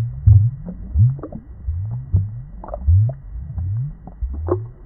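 Underwater bubbling and gurgling: a low, rising burble about twice a second, with small plops and pops above it.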